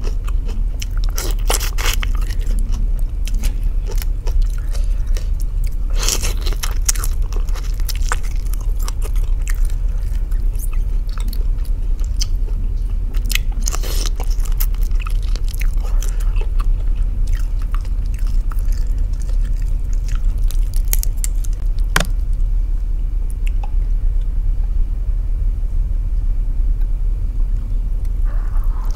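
Close-up eating sounds: chewing and biting, with scattered crisp crunches from raw vegetables and shrimp, over a steady low hum.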